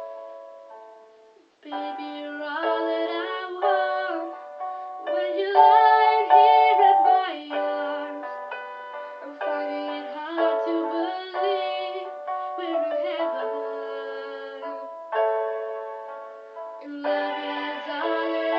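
Young woman singing a slow pop ballad cover with acoustic guitar accompaniment. A held note fades away, and she comes back in about a second and a half in, singing phrase after phrase.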